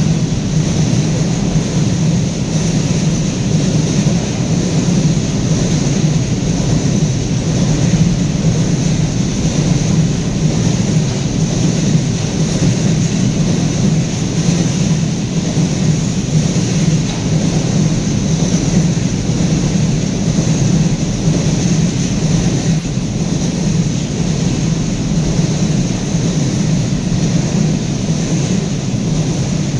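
Long freight train of container-carrying flat wagons rolling past at close range: steel wheels on the rails making a loud, steady rumble that doesn't let up.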